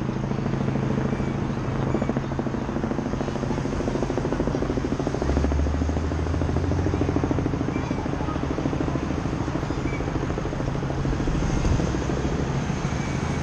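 Steady engine drone with a fast, even pulse, joined by a deeper hum for about two seconds around five seconds in.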